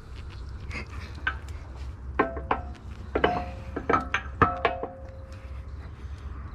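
Metal striking metal: six or so sharp clinks, several with a short ringing tone, between about two and five seconds in, as the mini excavator's cylinder pivot pin is worked back into its mount. A steady low hum runs underneath.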